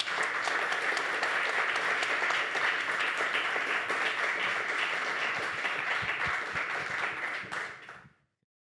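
Audience applauding, a dense patter of many hands clapping, which dies away and cuts to silence about eight seconds in.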